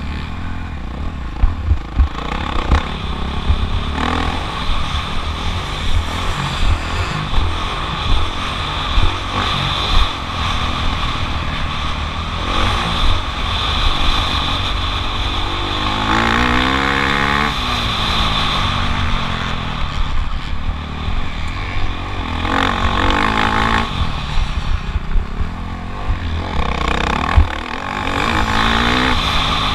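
Motocross bike engine revving hard and easing off as the rider works the throttle, its pitch swooping down and back up several times, most clearly about halfway through. A heavy rumble of wind buffeting the camera's microphone runs underneath.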